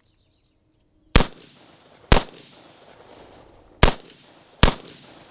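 Four single rifle shots from an AR-style rifle fitted with a Dead Air Pyro flash-enhancing muzzle device, fired at an uneven pace, each followed by an echo that dies away.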